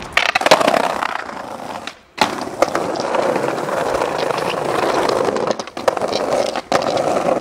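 Skateboard wheels rolling fast over rough pavement, a loud, gritty rumble with sharp clicks and clacks from cracks in the surface. The rolling cuts out briefly just before two seconds in and comes back with a sharp clack of the board landing.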